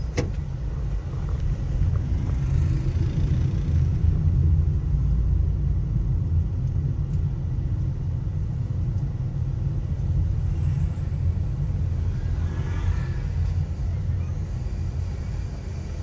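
Steady low rumble of a car's engine and tyre noise heard from inside the moving car's cabin, with one sharp click right at the start.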